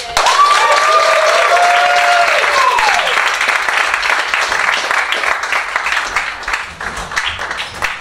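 Live audience applauding, with a few voices whooping and cheering over the first three seconds; the clapping thins out toward the end.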